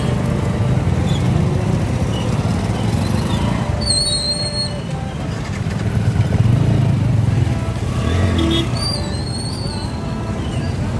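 Motorcycle and vehicle engines idling in stopped traffic, a steady low rumble. Twice, about four and nine seconds in, a short high warbling chirp sounds over it.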